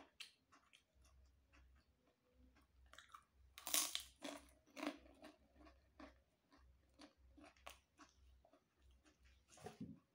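Krupuk crackers crunching as they are broken and chewed: a run of faint small crackles, with the loudest crunches about four and five seconds in and another near the end.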